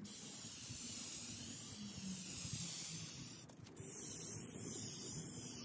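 Aerosol spray can hissing steadily as it sprays a coat of shellac sealer, with a short break about three and a half seconds in.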